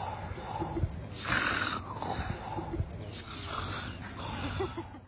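A man snoring: several drawn-out snores, each about half a second long and spaced roughly a second apart.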